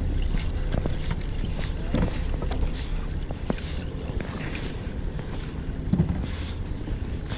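Steady rumble of a charter fishing boat's engine with wind on the microphone, and the faint whir and small clicks of a spinning reel being cranked to bring up a hooked fish.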